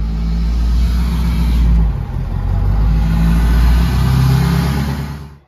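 Pickup truck driving slowly over a grassy farm lane: the engine runs with a steady low rumble that wavers a little in pitch, with tyre and ground noise over it. The sound cuts off abruptly at the end.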